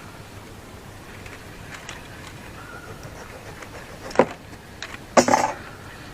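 Handling of an insulation tester's test lead clip being attached to a cable conductor: a sharp click about four seconds in and a brief scraping clatter about a second later, over a steady low background hum.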